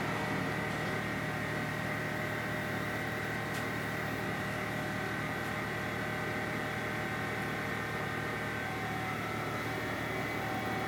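Mobile crane's engine running steadily as it hoists a load: a constant drone with a high whine over it.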